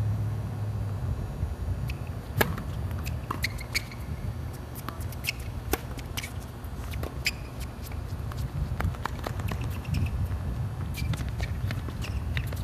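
Wind buffeting the phone's microphone as a steady low rumble, with scattered sharp clicks and taps over it, the loudest about two and a half seconds in.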